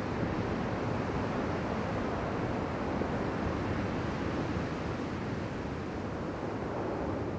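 Steady wind noise rushing over the microphone, with no distinct events.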